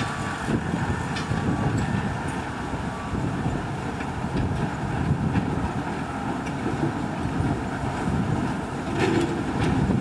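Narrow-gauge diesel locomotive running at low speed, a steady engine rumble with a few sharp metallic clicks from the rails and wheels.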